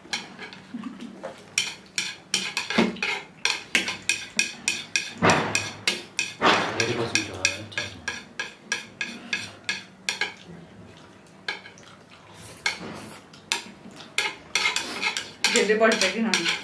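Chopsticks clicking and scraping against a bowl as noodles are picked up, in quick, irregular taps. There is a longer noisy stretch about five seconds in.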